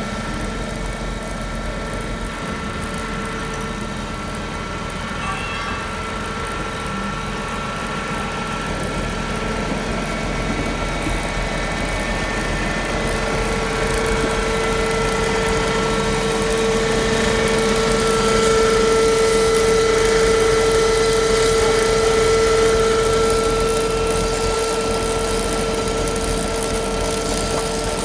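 Dazzini TCI260VH chain saw machine running, its cutting chain sawing a vertical cut into the ground. A steady mechanical whine that grows louder from about halfway through and eases off a little near the end.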